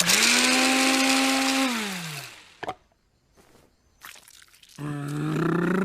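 Cartoon kitchen blender whirring with a steady motor hum that winds down and stops about two seconds in. A short click follows, and near the end a new steady, pitched whine starts.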